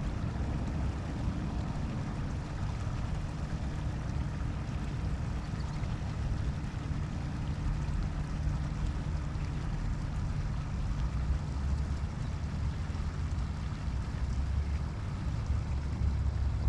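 Steady low rumble of outdoor background noise with no distinct events, swelling slightly a few times.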